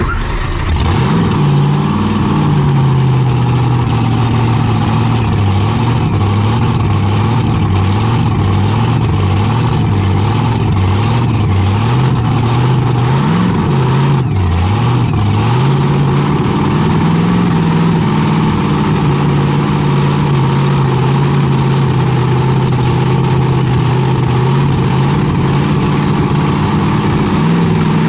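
Sledge Hammer pulling tractor's V8 engine, heard from inside the cab, coming in loudly right at the start and then idling unevenly. There are brief blips of the throttle about halfway through and again near the end.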